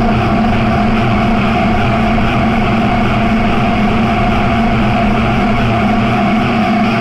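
Eurorack modular synthesizer drone: a dense, steady bed of noise with a few held low and mid tones, engine-like and unchanging in level.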